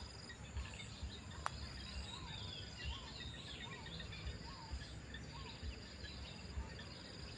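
Garden ambience of insects and birds: a steady high insect drone, scattered bird chirps, and a short rising-and-falling call repeated six times, about every 0.7 s, from about two seconds in. One sharp click about a second and a half in, over faint low bumps.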